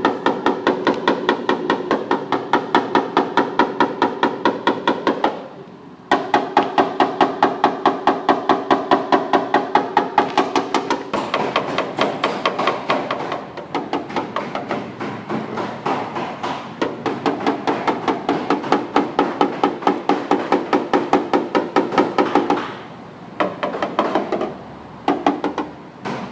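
Rapid, even hammer taps on a car body panel during paintless dent repair, about five a second, each with a short pitched ring. The tapping stops briefly about five seconds in, then resumes. Near the end it breaks up into a few scattered taps.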